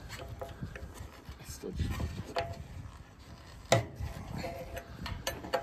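Steel wrench clicking and knocking against a metal sprinkler fitting on a wheel line irrigation pipe as it is turned, with one sharp metal clank about two-thirds of the way through.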